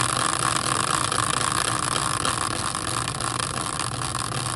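A small motor running steadily with a low hum, an even whirring noise without beats or changes.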